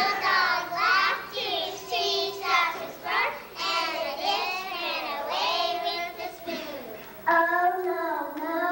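A group of young children singing a song together. A little over seven seconds in, one child's voice takes over, louder, into a microphone.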